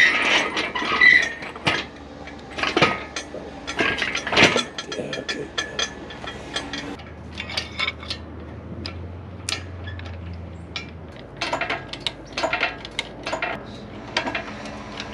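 Steel chain and hoist hardware clinking and clanking in irregular short knocks as a lifting chain is rigged to raise an engine.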